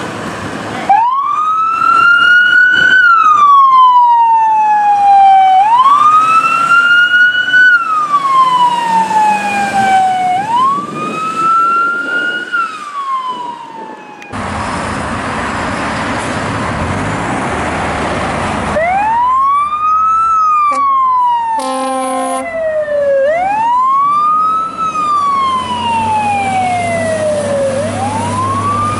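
Fire truck siren wailing, each cycle rising quickly and falling off more slowly, about every two and a half seconds. About halfway through, a second siren takes up the same wail, with a short air horn blast in the middle of it and a low engine sound toward the end.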